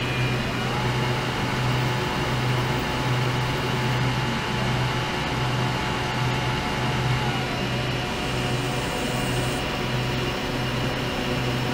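Ultrasonic cleaning tank running: a steady low buzzing hum with a hiss over it, the hum wavering in strength, and a faint higher tone that comes in about a second in and fades near the end.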